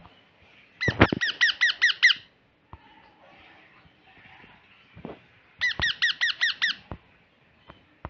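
Baby parrot giving begging calls while being fed: two bursts of rapid, squeaky, repeated notes, about eight to a burst, the first just under a second in and the second some five seconds later. A few light knocks come with them.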